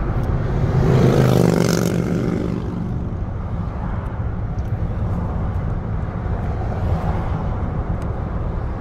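Steady road and engine noise heard from inside a moving vehicle's cab, with a louder rush and a tone falling in pitch about a second in.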